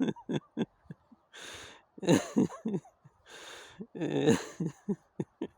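A man laughing hard in short bursts of voiced pulses, with long gasping in-breaths between the bursts.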